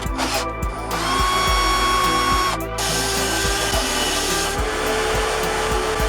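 A power tool running in two spells: a steady high whine that cuts off suddenly after a second and a half, then a rougher, lower-pitched run, over background music with a steady beat.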